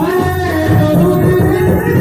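Gujarati santvani devotional bhajan music. A held melody line slides up at the start and is then sustained over a steady hand-drum beat.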